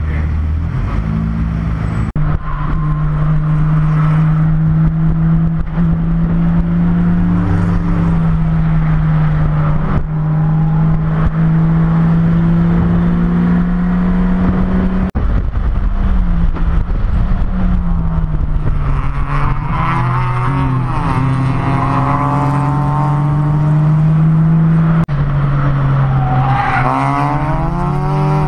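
BMW E30 race car's engine heard from inside the cockpit, running hard at speed on a race track. Its pitch holds steady along the straights and drops and climbs again at gear changes and corners. A higher wavering squeal rises over it around the middle and again near the end.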